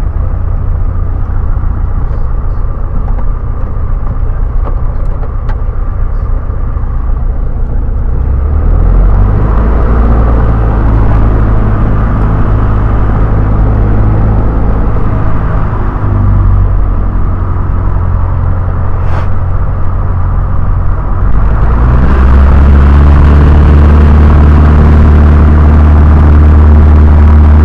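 Piper Tomahawk's four-cylinder Lycoming O-235 engine heard from inside the cockpit, running at low power, then stepping up about nine seconds in and rising to full throttle about 22 seconds in for the takeoff run.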